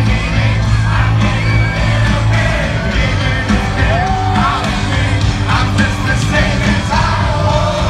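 Live rock band performance: a male lead singer's amplified vocals over the band, loud and continuous, with sung notes bending in pitch.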